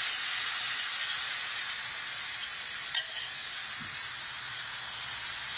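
Onion, tomato and curry-paste base frying in a pan, a steady sizzling hiss as the watery paste mixture hits the hot oil. A single sharp click about three seconds in.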